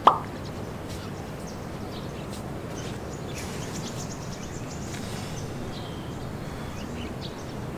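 Steady wind rushing over the microphone, with a few faint high chirps.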